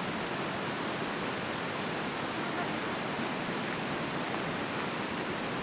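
Steady rushing of a fast-flowing river: an even hiss with no breaks.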